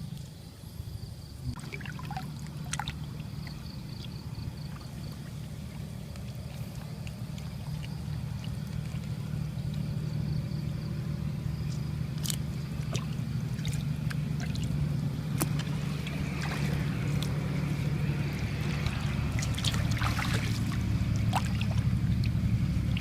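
A small motor humming steadily and growing slowly louder, with water trickling and splashing and a few light knocks.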